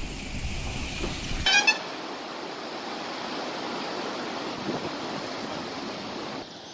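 Muddy floodwater rushing in a swollen stream, heard as a steady hiss of running water. About a second and a half in, a low rumble cuts off and a vehicle horn gives one short toot.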